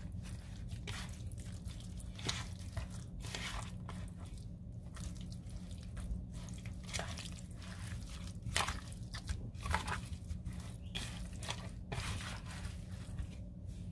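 Wet squelching and smacking of bare hands massaging seasoning into raw chicken thighs in a bowl, coming in irregular bursts over a steady low hum.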